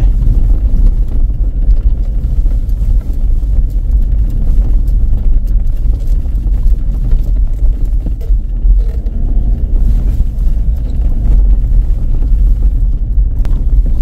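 Steady low rumble of a Ford Endeavour SUV being driven on a rough road, with the engine and tyre noise heard from inside the cabin.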